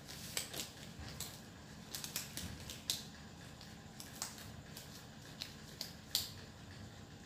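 Light, irregular clicks and rustles of handling, from disposable latex gloves being pulled on and fitted, with the sharpest clicks about 3 s and 6 s in.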